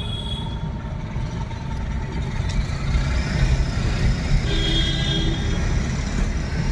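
Car driving along a road, heard from inside the cabin: a steady low engine and road rumble, with a brief higher tone about four and a half seconds in.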